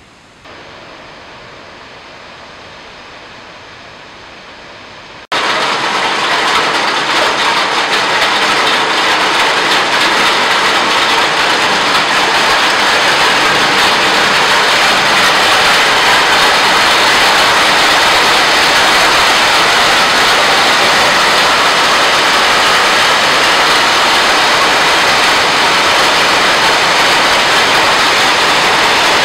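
Light wind for the first few seconds, then an abrupt cut to heavy rain mixed with hail pelting the paving, roof tiles and hedges: a loud, steady hiss.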